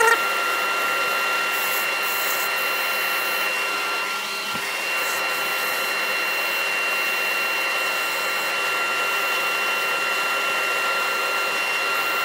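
Workshop dust extractor running steadily with a constant whine, together with a wood lathe spinning a bowl that is being hand-sanded with a sanding pad.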